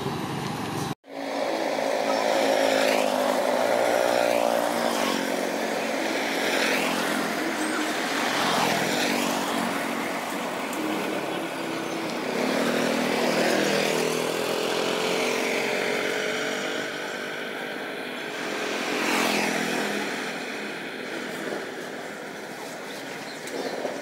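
Street traffic, mostly motorbikes riding past one after another, each engine rising and fading as it goes by. The sound cuts out briefly about a second in.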